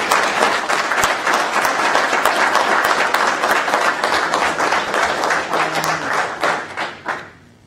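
Audience applauding, many people clapping at once, dying away about seven seconds in.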